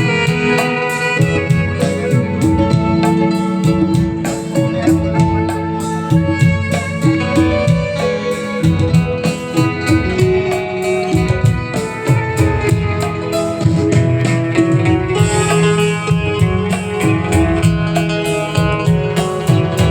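Instrumental music with a steady beat and held melody lines over it.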